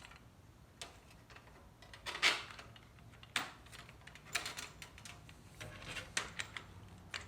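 Irregular clicks and knocks of metal bolts being handled and pushed through holes in the rudder and its bracket, the loudest a little over two seconds in.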